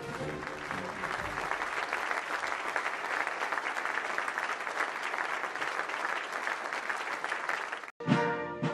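Crowd applauding steadily. Near the end it cuts off abruptly, and brass band music with a marching beat takes over.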